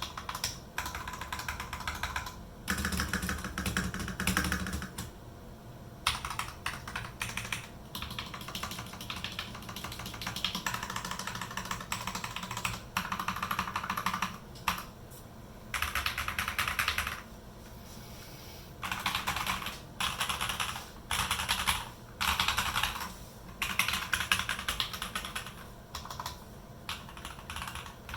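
Typing on a TM980 98-key custom mechanical keyboard fitted with JWK Yellow linear switches: bursts of rapid key clacks, each a second or two long, separated by short pauses.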